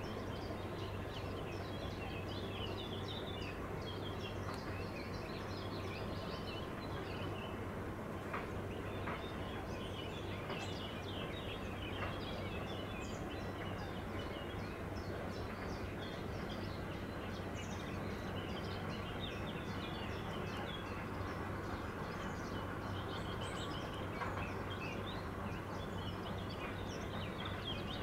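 Many small birds chirping and singing continuously in the background, over a steady low hum.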